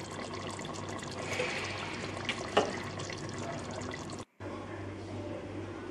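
Thick mutton curry boiling in a pot, a steady bubbling with many small pops and one sharp tick about two and a half seconds in, over a low hum. The sound cuts out briefly at about four seconds.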